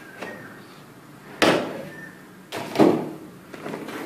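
Cardboard box being handled as the inner box of a graphics-tablet package is slid out of its outer printed sleeve, with two sudden scraping sounds about a second apart, each fading quickly.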